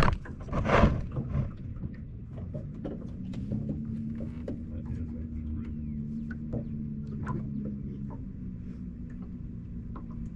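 A motor humming steadily at a low pitch, with scattered clicks and knocks over it, after a loud rush of noise in the first second or so.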